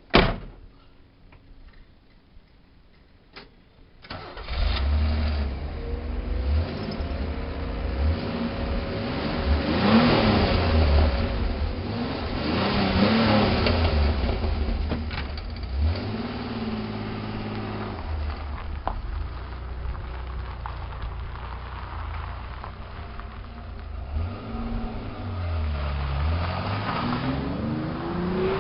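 1985 Pontiac Fiero GT's 2.8-litre V6 starting about four seconds in, after a sharp click, then idling and being revved twice around the middle and again near the end. It runs through its old exhaust, whose catalytic converter the owner says rattles and is about ready to fall apart.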